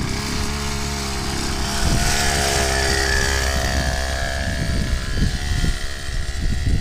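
Small dirt-bike engine running as the motorcycle pulls away, the revs and level rising about two seconds in, with wind noise on the microphone.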